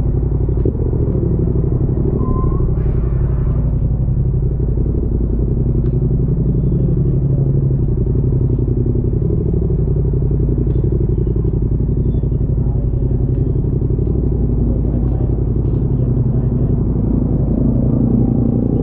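Motorcycle engine running at a steady pace while riding, with a constant low road and wind rumble.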